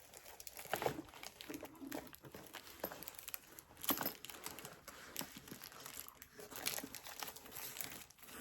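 Packaging crinkling and rustling as items are unpacked and handled, with scattered small clicks and knocks, the sharpest about four seconds in.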